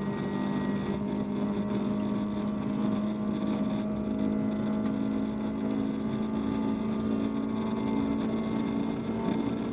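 VW Polo 1.4 16v four-cylinder engine running hard at a fairly steady pitch, heard from inside the rally car's cabin along with a steady rush of road noise.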